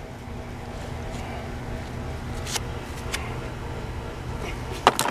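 A few light clicks of screwdrivers being handled and set down, the loudest pair near the end, over a steady low hum.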